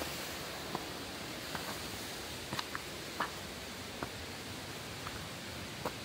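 Steady rush of a nearby waterfall, with a scattering of short, sharp taps and clicks from footsteps on stones and leaf litter.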